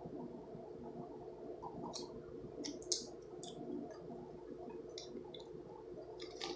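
Scattered light clicks and taps from handling a plastic mustard squeeze bottle, the sharpest about three seconds in, over a faint steady hum.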